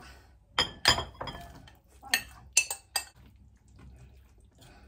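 A metal utensil clinking and scraping against glass bowls as salad is scraped from one bowl into another and stirred. About five sharp, ringing clinks come in the first three seconds, then softer stirring.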